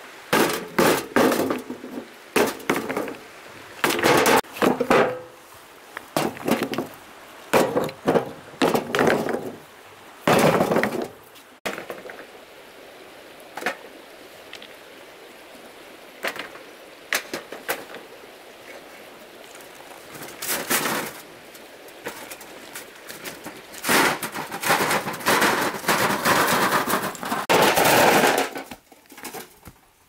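River stones dropped one after another into a steel wheelbarrow tray: sharp clanks and knocks of rock on metal and rock on rock, in quick clusters. There is a quieter spell in the middle, filled by the steady rush of the shallow river, before a second run of clattering near the end.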